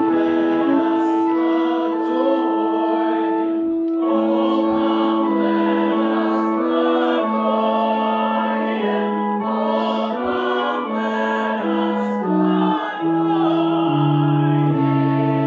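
A group singing a Christmas carol, a man leading into a microphone, accompanied by an electric keyboard playing sustained chords over a stepping bass line.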